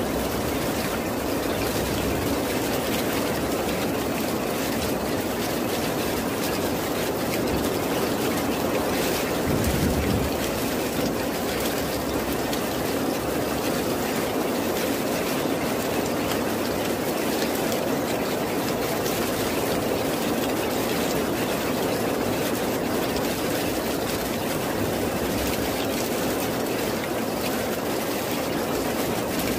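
Steady heavy rain, a dense even hiss, with a brief low rumble about ten seconds in.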